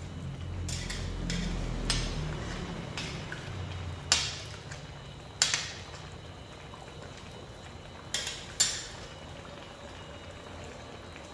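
Metal ladle stirring and scooping sauce in a stainless-steel pot, clinking against the pot several times; the sharpest knocks come about four, five and a half, and eight seconds in. A low steady rumble runs underneath from the simmering pot.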